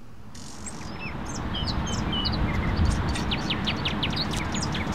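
Outdoor ambience of birds chirping in short, repeated calls over a steady low background noise that fades in during the first second or two.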